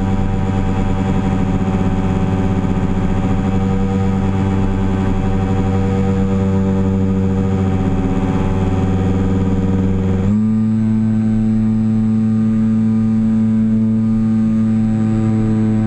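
Electric motor and propeller of a HobbyZone Super Cub RC plane in flight, heard from right behind the prop: a steady droning whine that steps up slightly in pitch about ten seconds in and holds there.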